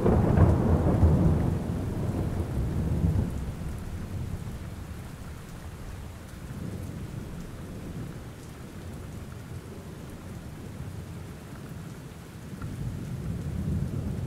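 Steady rain with a long, low thunder rumble that is loudest at the start and fades over the first few seconds. A smaller low rumble swells again near the end.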